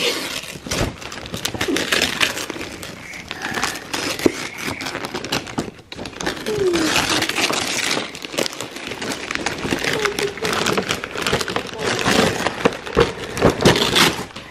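Gift wrapping paper being torn and crumpled as a box is unwrapped, a dense run of irregular crackling and rustling.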